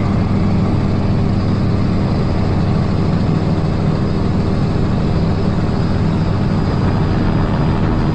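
Propeller aircraft engine droning steadily at a constant pitch, heard close up from on board.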